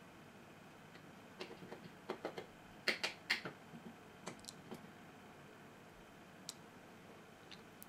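Faint scattered clicks and light taps of a screwdriver and small metal parts being handled on an opened hard drive, as the actuator arm's pivot screw is loosened and taken out. The two sharpest clicks come about three seconds in.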